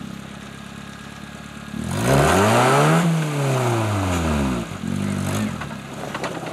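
Suzuki Samurai rock crawler's engine climbing under load, revved up and back down in one long rise and fall about two seconds in, then a shorter rev, otherwise running low near idle.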